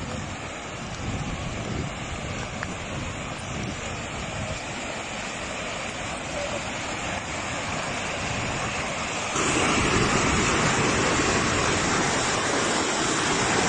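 Shallow mountain stream rushing over rocks in a steady hiss of water, which becomes clearly louder and brighter about nine seconds in, as the small rapids come close.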